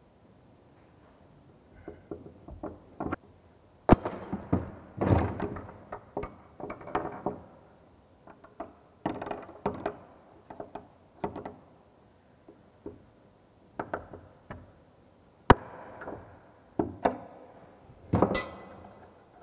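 Hammer knocking basin-mounting bolts into drilled holes in a wall, driving them flush with the surface: irregular clusters of knocks and taps, with two sharp single strikes standing out. Near the end an adjustable spanner works on a bolt's nut.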